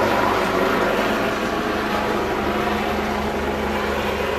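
Aircraft engine running with a steady drone.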